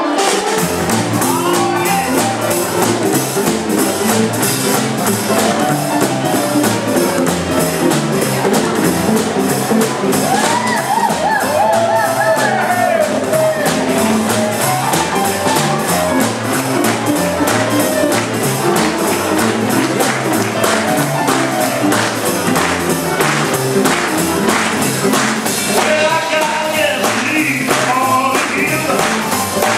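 Live jump-blues band playing an up-tempo boogie-woogie, with upright bass, drums, piano, electric guitar and saxophones over a steady beat. A singer's voice comes in near the end.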